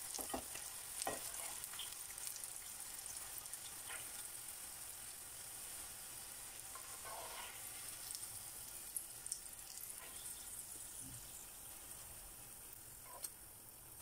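Oil sizzling in a frying pan as egg- and corn-flour-coated green beans fry, with a few light clicks of metal tongs as the beans are lifted out. The sizzling slowly grows fainter.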